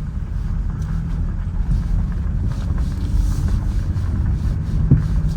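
Car engine and road noise heard from inside the cabin while driving, a steady low rumble, with a single short knock near the end.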